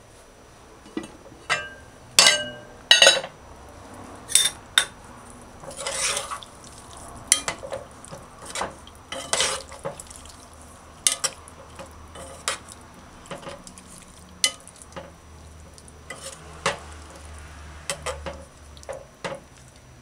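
An aluminium pot lid lifted off with two loud ringing clanks, then a metal spoon stirring a thick curry stew of conch and butter beans, with irregular clinks and scrapes against the aluminium pot.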